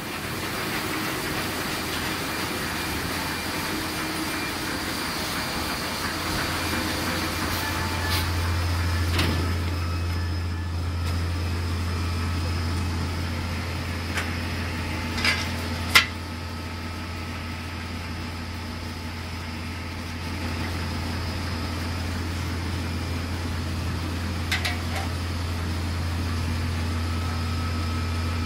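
Steady low hum of offset printing-press machinery and its fountain-solution unit running, with the drone growing stronger about a third of the way in. A few short sharp clicks sound over it; the loudest comes about halfway through.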